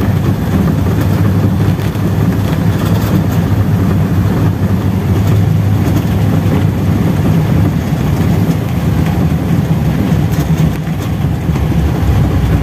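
1200 cc air-cooled Volkswagen flat-four engine running steadily as a low rumble, heard from inside the car as it drives on a wet road.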